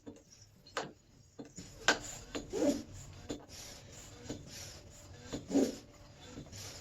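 High-pressure hand pump being stroked to fill a PCP air rifle: a few clicks and a short rubbing squeak from the pump a couple of times.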